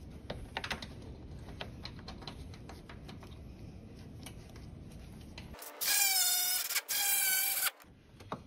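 Light clicks of bolts being handled and threaded, then a cordless electric ratchet runs twice, about a second each time, with a steady motor whine, driving in the fan shroud bolts.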